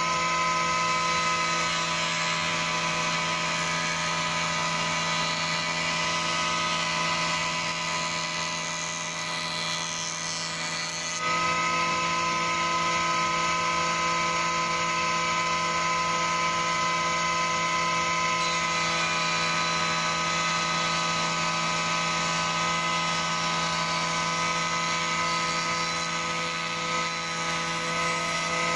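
Surface planer (jointer) running steadily, a constant motor and cutter-block hum and whine, as small strips of tulip wood are fed along its fence.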